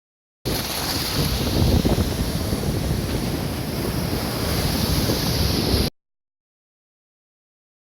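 Sea surf breaking on shore rocks, with wind buffeting the microphone. The noise cuts in abruptly about half a second in and cuts off just as suddenly about five seconds later.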